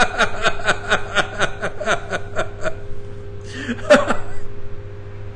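A man laughing hard, in a quick even run of about five bursts a second that dies away under three seconds in, followed by a breath drawn in near four seconds.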